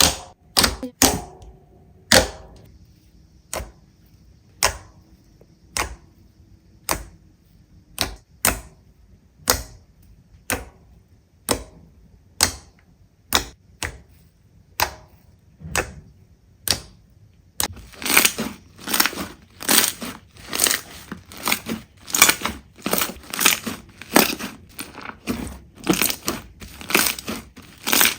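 Slime being pressed and worked by hand, giving sharp popping clicks about once a second. About two thirds of the way through, the pops turn quicker and fuller, about two a second.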